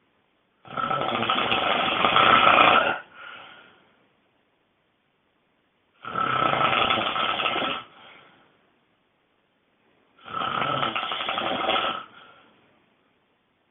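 A person snoring very loudly: three long snores of about two seconds each, spaced roughly four to five seconds apart, each trailing off briefly, with quiet breaths between.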